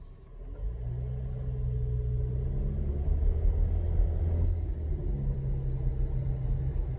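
Volkswagen T-Cross Highline pulling away and accelerating, heard from inside the cabin: engine and road rumble building up. There is a brief dip about five seconds in as the gearbox shifts up.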